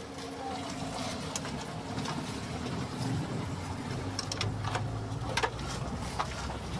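A steady low engine hum, with a few sharp clicks and knocks a little after four and five seconds in.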